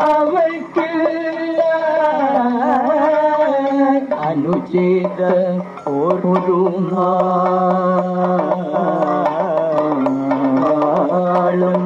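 Male voices singing a Kathakali padam in slow Carnatic-style melody, heavily ornamented with wavering glides, over sparse percussion strokes. A new phrase begins about four seconds in, on long held notes.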